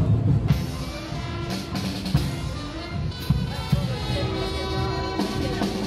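Carnival band music: regular drum beats under held, steady notes that shift pitch a few times.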